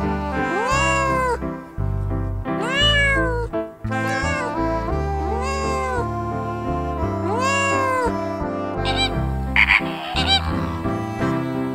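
Domestic cats meowing, about five drawn-out meows that rise and fall in pitch, over background music. Near the end the meows give way to flamingos honking.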